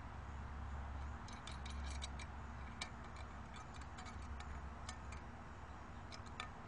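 Light, irregular metal-on-metal clicks and taps, coming in clusters with a couple of sharper clicks, as a steel lock nut is threaded and twisted onto a conduit set screw connector inside a metal electrical box.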